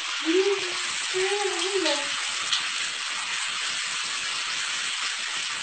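A woman's voice gives two short wordless moans of dismay in the first two seconds, over a steady hiss.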